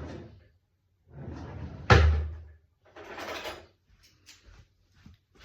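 A drawer sliding and banging shut, the bang about two seconds in being the loudest sound, followed by rummaging noise and a few light clicks.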